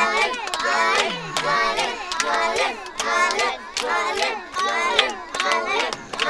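A group of children shouting together in a rhythmic chant, about two shouts a second, like a crowd cheering someone on.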